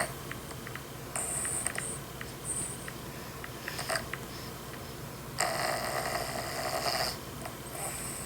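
A sleeping dog snoring: long, hissing breaths a few seconds apart, one about a second in and a longer one past the middle, with another starting at the very end and a few faint clicks in between.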